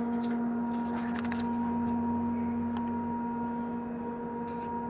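Ferry engines and machinery droning steadily: one low humming note with overtones. A few faint clicks and rustles about a second in.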